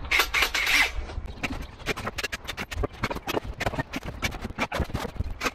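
A short scraping rush, then a fast, irregular run of clicks and knocks, several a second: construction work on wooden battens played back sped up.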